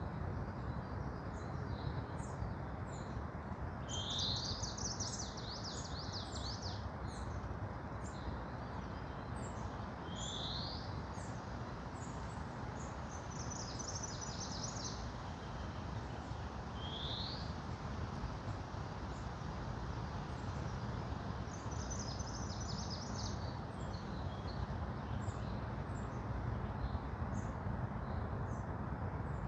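Forest songbirds singing over a steady low hiss of background noise: short high chips throughout, a single rising note three times, and three fast buzzy trills lasting one to three seconds each.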